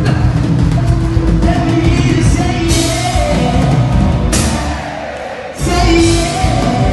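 Live reggae band with sung vocals, heavy in the bass with long held notes. The music drops briefly about five and a half seconds in, then comes back loud.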